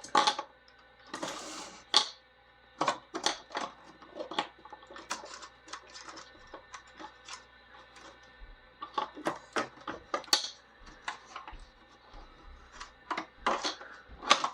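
Irregular sharp clicks and taps, with a short rustle about a second in, from hands handling the chronograph's small plastic housing parts and wires.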